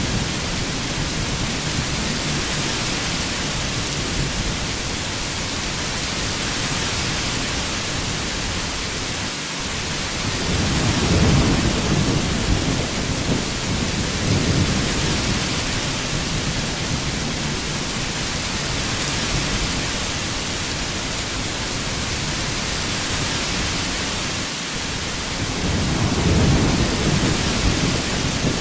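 Heavy rain falling steadily in an even hiss, with low rumbles of thunder swelling up about ten seconds in and again near the end.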